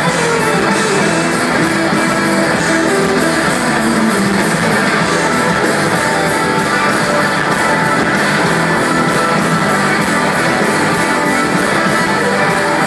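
Live rock band with an electric guitar solo over a steady drum beat, loud throughout.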